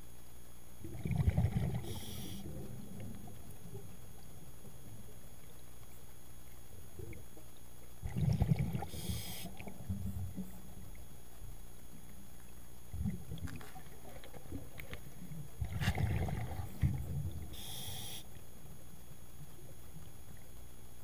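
Scuba diver's breathing heard underwater, three breaths about seven seconds apart. Each is a burst of exhaled bubbles rumbling past the camera, followed by a short hiss from the regulator.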